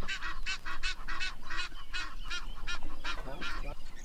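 A bird calling in a long run of short, harsh calls, about three to four a second, which stop shortly before the end.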